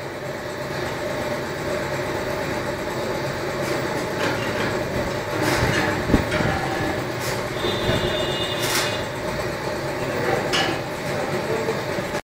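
Dashmesh straw blower running with a steady mechanical drone, several sharp metallic clanks and a short high squeal about eight seconds in.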